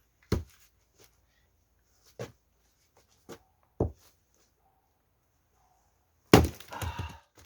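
An axe splitting a pine log: a few light knocks, then about six seconds in one hard strike with a second of cracking and clatter after it.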